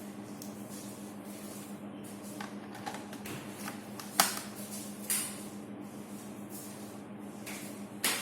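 A few sharp clicks and light scraping from small parts being handled, over a steady low hum; the loudest click comes about four seconds in.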